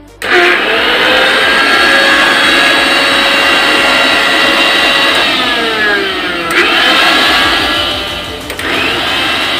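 Mixer grinder's motor switched on and running fast with a steady whine, now working again after its blown overload protector was bypassed by joining the two clips. About five seconds in it slows and winds back up, and near the end dips and picks up once more.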